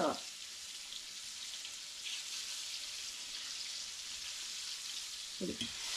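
Breaded thin chicken breast fillets frying in hot grease in a black cast iron skillet: a steady sizzle with a few small pops, the chicken cooked through and browning.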